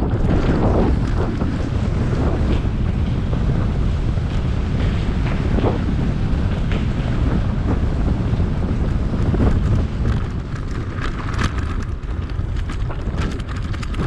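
Wind buffeting a GoPro Hero 7's microphone while riding an electric bike: a loud, steady low rumble, with scattered short clicks and rattles that come more often in the last few seconds.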